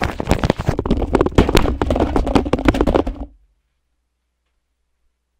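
Loud, rapid knocking and rustling close to the microphone for about three seconds, the sound of the mic and desk being bumped and handled as someone gets up. It then cuts off abruptly to dead digital silence.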